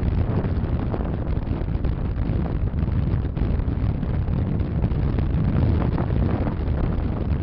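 Strong wind buffeting the microphone: a steady, dense rumble heaviest in the low end, with no clear engine note standing out.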